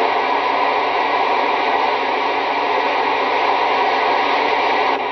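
Steady radio static hiss from a CB radio channel with no voice on it, between test transmissions; it eases off just before the end.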